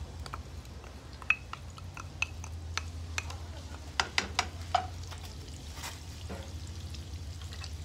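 Butter melting with a faint sizzle in a little hot oil in a nonstick frying pan, while a wooden spatula scrapes and taps against a small ceramic bowl and the pan in a series of sharp clicks. A steady low hum runs underneath.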